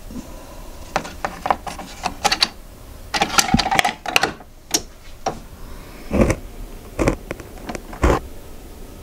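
Sharp plastic clicks and knocks of a Keurig single-serve coffee maker being handled: its lid is pulled down and latched and its buttons are pressed. Near the end come three heavier clunks about a second apart.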